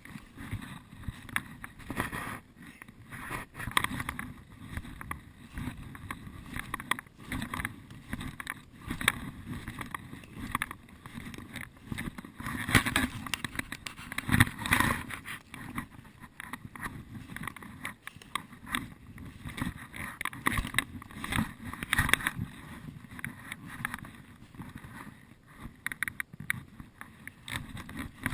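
Footsteps and rustling through forest undergrowth: irregular crunches and crackles of dry leaves and twigs, with a busier patch about halfway through.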